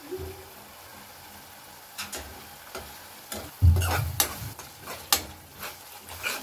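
A metal spoon stirring and scraping a thick masala paste around a metal kadai, with repeated scrapes and clicks against the pan and one heavier knock about halfway through. The paste of onion, garlic, ginger and spices is sizzling gently in oil as it cooks down.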